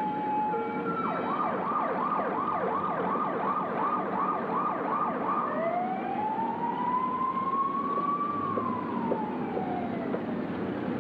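Ambulance siren. It goes from an alternating two-tone hi-lo for the first second into a fast yelp, about three to four sweeps a second. About five and a half seconds in it changes to one slow wail that rises, then falls away. Steady traffic noise runs underneath.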